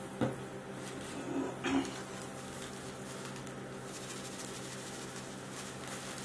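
Steady electrical hum from the running ice-roll machine's cold pan. A sharp click sounds just after the start, and a couple of light knocks follow about a second and a half in.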